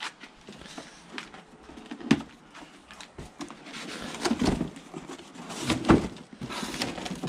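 Cardboard box and packaging being pulled open and handled: irregular rustling, scraping and sharp knocks, loudest about two seconds in and again near six seconds.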